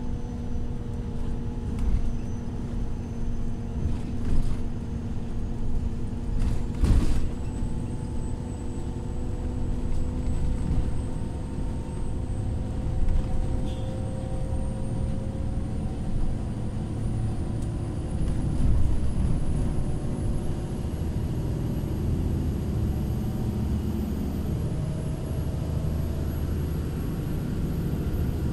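Irisbus Crossway 12M bus under way: a steady engine and road rumble, with a thin high whine that climbs slowly in pitch. A few bumps and knocks come through, the loudest about seven seconds in.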